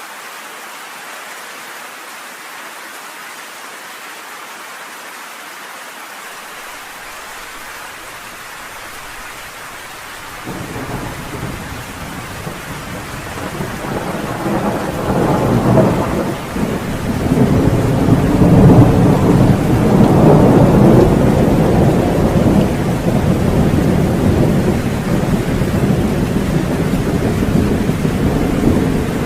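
Steady rain falling, joined about a third of the way in by rolling thunder that builds to a long, deep rumble and keeps rumbling under the rain to the end.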